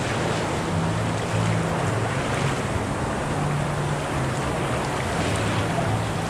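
Churning, rushing water of a fast-current wave river around the rider, heard as a steady wash of noise with a low hum underneath.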